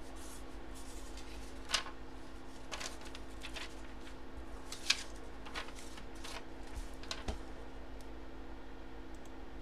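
A marker writing on paper, with cards and slips handled on a desk: a string of short scratchy strokes and rustles over a steady background hum.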